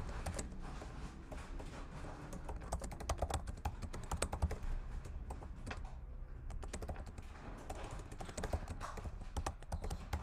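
Typing on a computer keyboard: irregular key clicks in two spells, with a short pause around the middle.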